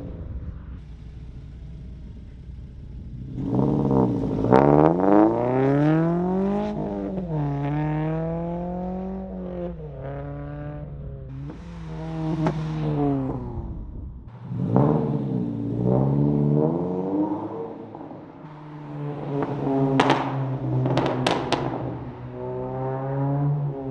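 Subaru BRZ flat-four engine breathing through a muffler-delete axle-back and Tomei titanium test pipe, accelerating past. The pitch climbs and drops at each upshift and then holds steady at cruising speed. After a cut, a second pass with a few sharp cracks from the exhaust.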